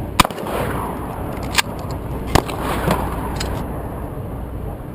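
Gunshots at a shooting range: one loud, sharp shotgun shot at clay targets about a quarter second in, then fainter shots about a second and a half and two and a half seconds in.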